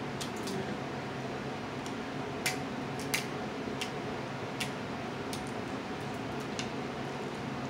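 Snow crab leg shells cracking and snapping by hand: several short, sharp cracks spaced irregularly about a second apart, over a steady low room hum.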